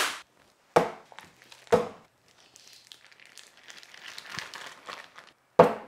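Plastic meat packaging crinkling and tearing as a brisket flat is pulled out of it: several sharp crackles, with a stretch of softer rustling in the middle.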